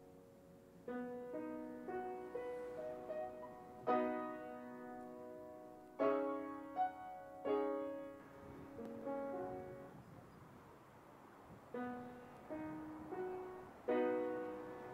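Background piano music: slow, spaced chords and single notes, each struck and left to ring and fade.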